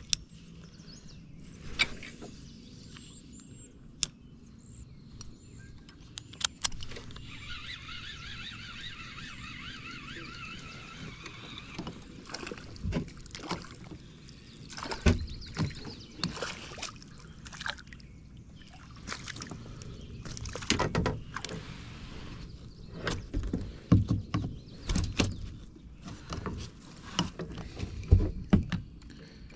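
Irregular handling knocks, bumps and sharp clicks. A fine, steady whirring runs for about five seconds, starting some seven seconds in.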